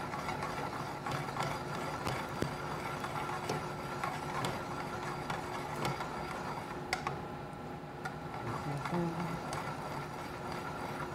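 Thin-sliced garlic sizzling in olive oil in a sauté pan as it toasts toward light brown, with light clicks and scrapes of metal tongs stirring it against the pan. A steady background hum runs underneath.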